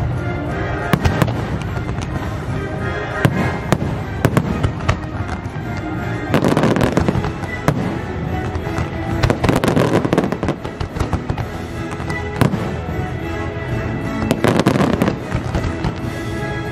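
Fireworks launching and bursting in quick succession, sharp bangs coming thickest about six, nine and fourteen seconds in, over the show's orchestral music.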